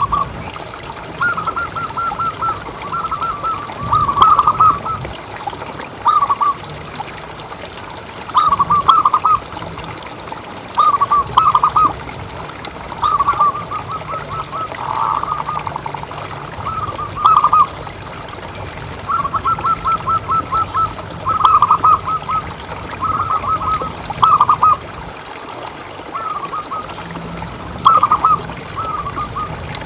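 Zebra dove (perkutut) cooing: repeated phrases of quick staccato notes, a new phrase every second or two.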